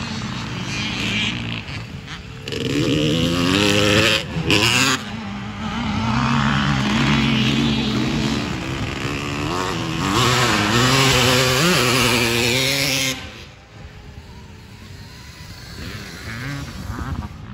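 Motorcycle engine revving on a motocross track, rising and falling in pitch as it works through the throttle. It goes on for about ten seconds, then drops off sharply, leaving quieter riding noise near the end.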